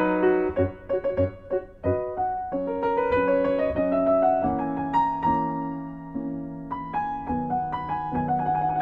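Background piano music: a melody of single notes over held chords, with a longer sustained chord about halfway through.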